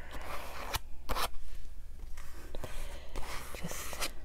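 Scraping and rustling of paint being worked onto a paper journal page with craft tools, broken by a few sharp taps, the loudest a little after a second in.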